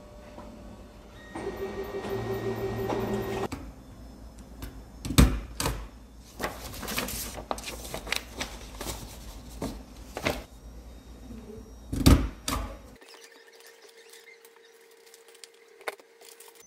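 Office printer running for about two seconds, followed by sheets of paper being handled, rustled and shuffled at a desk, with two louder knocks among the rustling. A faint steady hum near the end.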